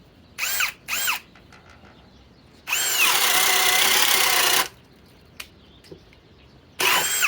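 Cordless drill motor with a 1 1/8-inch spade bit fitted, run in short trigger pulls. Two quick blips in the first second, each with a whine that rises and falls, are followed by a steady run of about two seconds and another burst starting near the end.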